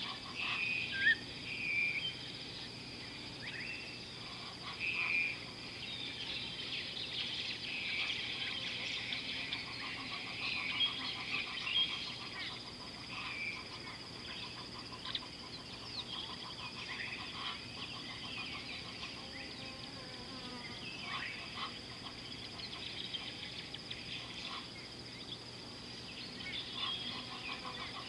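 Chorus of wild birds chirping and calling, many short, high calls scattered throughout, over a steady high-pitched insect drone. Rapid trilled pulses recur now and then.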